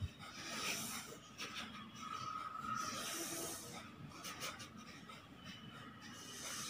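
Several people doing kapalabhati breathing: short, forceful exhalations snorted out through the nose, faint and uneven as each person keeps their own pace.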